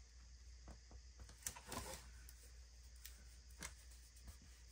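Near silence with faint rustles and a few light clicks of paper stickers being handled, the clearest a little after a second in and again past three and a half seconds.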